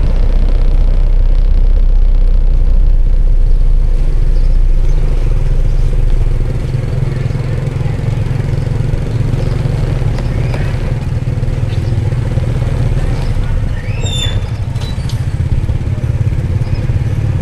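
A motor vehicle, likely a motorbike, running steadily with a loud low rumble, louder for the first few seconds. A brief high chirp near the end.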